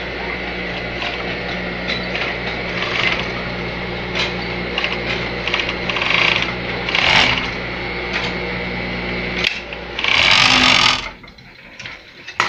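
Industrial overlock sewing machine running, a steady motor hum with stretches of rapid stitching as the fabric, bias binding and cord are fed through a binding folder. The hum cuts off about nine and a half seconds in and is followed by a short, loud rush of noise, then a few quiet clicks.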